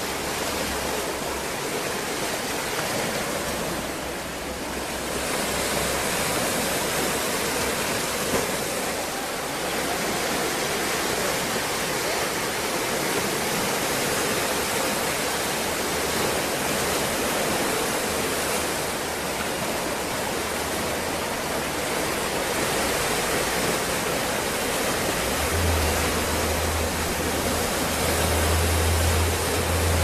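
Atlantic Ocean waves washing, a steady rushing sound that swells and eases slowly. A low rumble grows much stronger near the end.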